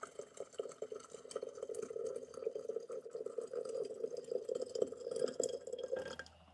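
Freshly boiled water poured in a steady stream from an electric kettle into a glass teapot, with a splashing, gurgling pour that stops near the end.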